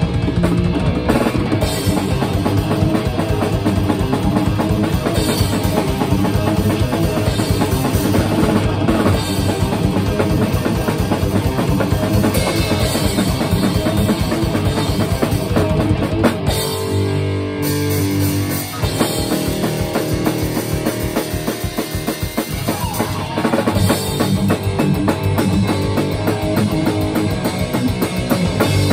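Rock band: electric guitar and drum kit playing together, with a fast, steady bass-drum pulse under the guitar. About two-thirds of the way through, the bass drum drops out for a couple of seconds while the guitar rings on, then the full beat comes back in.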